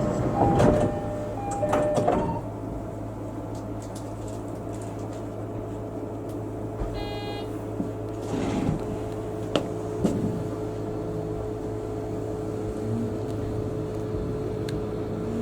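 Inside an electric commuter train at a station stop: a short chime melody ends about two seconds in, a brief high beep sounds about seven seconds in, then a few knocks, over the train's steady low hum.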